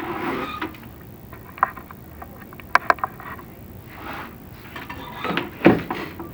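Scattered clicks, knocks and scraping, typical of a chimney inspection camera and its cable rubbing and bumping against clay flue tiles as it is lowered; a sharp double click about three seconds in, and heavier scraping knocks near the end.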